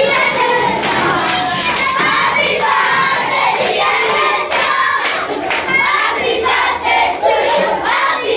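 A group of children singing and shouting together while clapping their hands.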